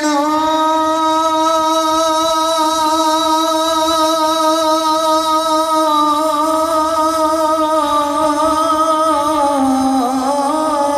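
A man singing a naat, holding one long sung note that stays steady for about nine seconds, then dips and climbs in pitch near the end.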